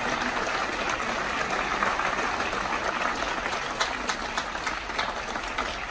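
Audience applauding in an auditorium: dense clapping that thins out a little toward the end, with single claps standing out.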